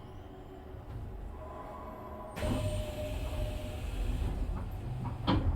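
Inside a Nishitetsu 3000 series electric train car standing at a station: a low rumble, then a steady rushing hiss that starts suddenly about two seconds in, and a sharp knock near the end.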